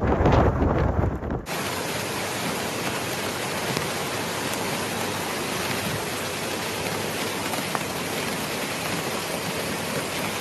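Strong wind gusting against the microphone, cut off about a second and a half in by a steady, even hiss of heavy rain falling.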